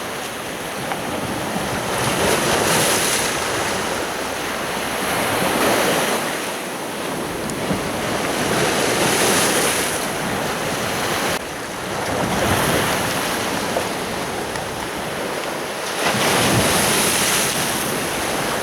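Sea surf breaking on the shore, swelling and easing every three or four seconds, with wind on the microphone.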